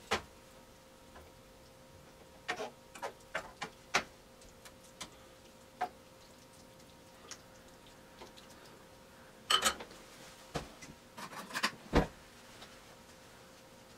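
Spatula clicking and scraping against a frying pan while a skillet meal is stirred, in irregular sharp taps and knocks. Near the end there is a louder clack as the spatula is set back on its spoon rest, over a faint steady hum.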